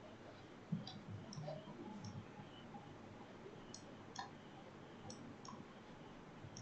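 Faint, scattered light clicks, about seven of them at irregular intervals, from pen input on a digital whiteboard, over low room tone.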